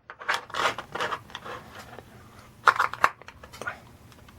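A screwdriver working the screws out of the back of a Yale cabinet lock: scraping and clicking of metal on metal in two short spells.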